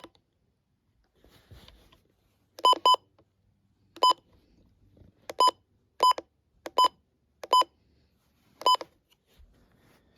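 Button beeps from a Midland radio's keypad: eight short, identical electronic beeps, each a single press, with a quick double press near the start and the rest spaced about a second apart.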